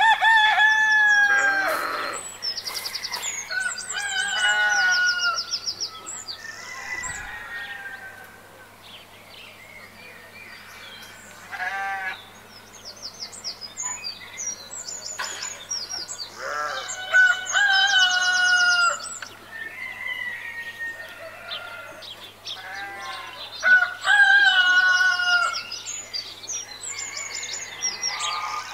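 Roosters crowing about four times, long calls with a falling end, with shorter clucking calls and quick high chirps between them.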